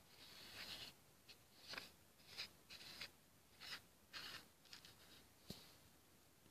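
Faint scraping and rubbing of a fused plastic hama bead coaster being turned and handled by hand on a surface: a run of short scrapes, about two a second, ending in one sharper click near the end.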